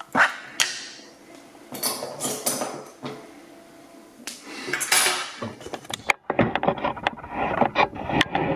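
Hands handling a euro cylinder lock, its key and a pin tray on a workbench: scattered sharp metallic clicks and clatters, turning into a dense run of clicks and rustling near the end.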